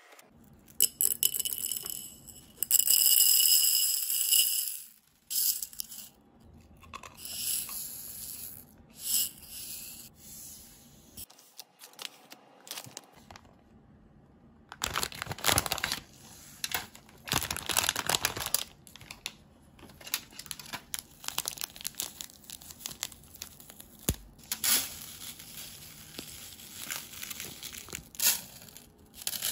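Plastic candy packets crinkling and tearing as they are handled and opened, in a series of short crackles with a louder, longer tearing stretch a few seconds in. Near the end, fine candy powder and sugar granules pour into a plastic tray.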